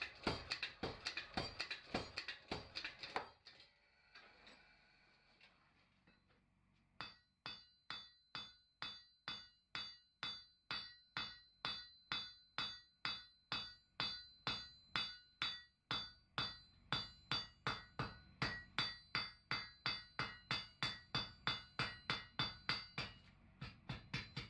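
Power hammer striking a red-hot steel bar in quick, even blows for about three seconds. After a short lull, a hand hammer beats the hot steel on an anvil at about three blows a second, each with a high ring from the anvil. Lighter, quicker taps come near the end.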